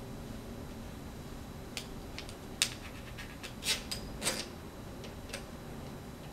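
Scattered light clicks and short scraping rubs of metal antenna parts being handled and fitted to an Arrow II antenna's boom, with the sharpest click about two and a half seconds in and two brief scrapes around four seconds.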